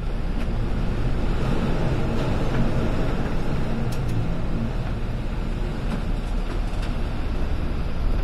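Steady, loud low rumble of storm wind and rough sea heard from high up on a general cargo ship's bridge as it ploughs through heavy waves.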